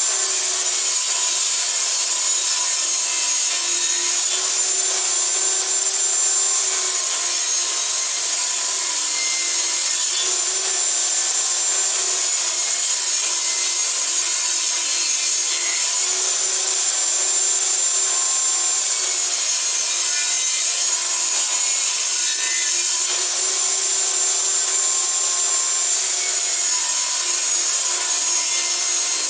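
Benchtop table saw running steadily while pallet-wood boards are pushed through it, ripping a thin strip off each edge. The saw's high whine sags slightly in pitch several times over its even, continuous noise.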